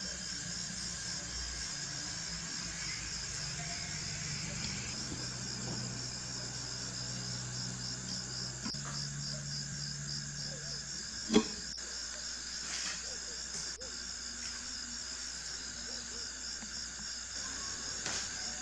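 Steady, high-pitched cricket-like insect chirring that pulses evenly throughout. One sharp click comes about eleven seconds in.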